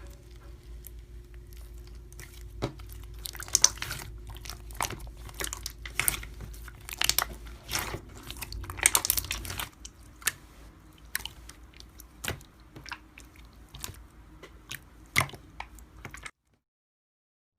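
Slime being pressed and squeezed by hand, crackling and popping in many sharp, irregular clicks over a steady low hum. It cuts off suddenly near the end.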